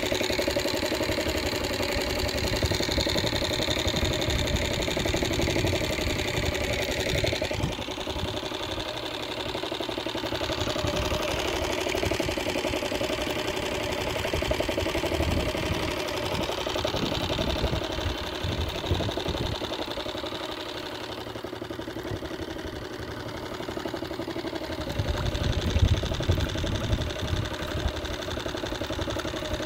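A small motor running steadily with an even hum, and wind buffeting the microphone at times.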